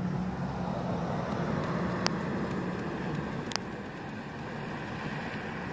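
Steady motor-vehicle running noise with a low hum, broken by two short sharp clicks about two seconds apart.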